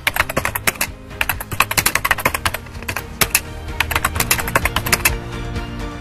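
Rapid computer-keyboard typing, a dense run of irregular key clicks over background music; the typing stops about five seconds in, leaving only the music.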